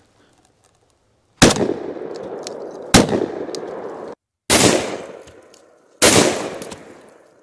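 Four 12-gauge shotgun blasts from a Citadel Bosshog semi-auto firing double-aught buckshot, about a second and a half apart, each followed by a long echoing tail that dies away.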